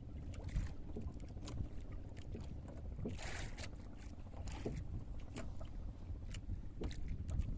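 Wind on the microphone and water around a small fishing boat, a steady low rumble with scattered knocks and clicks on board. A brief rushing hiss comes about three seconds in.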